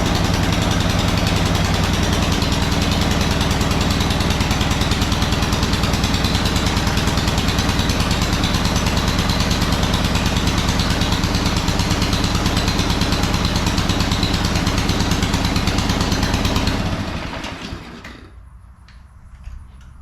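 Small single-cylinder gas engine running steadily after a fill of fresh gas, then shutting off about 17 seconds in and running down. A few light knocks follow.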